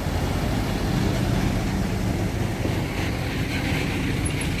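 Steady low hum of a vehicle engine running, with a noisy rush over it.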